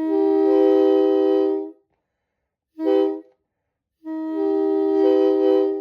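Homemade PVC air horns, a multi-chime set voiced to imitate a Nathan K3LA train horn, sounding a steady chord in three blasts: long, short, long. In the last blast the notes come in one after another, the lowest first.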